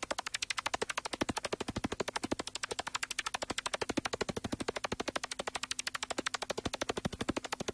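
Rapid, evenly spaced clicks, more than ten a second, over a faint steady hum, forming the opening rhythm of an electronica track.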